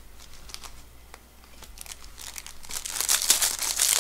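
A baseball card pack's wrapper being torn open and crinkled by hand. There are a few faint clicks at first, then from about halfway in the crinkling grows louder.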